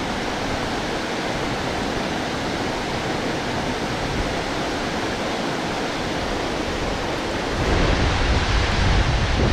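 Water pouring over a low concrete weir, a steady rushing hiss of the overflow and churning foam. Near the end a low rumble of wind on the microphone comes in and the sound grows a little louder.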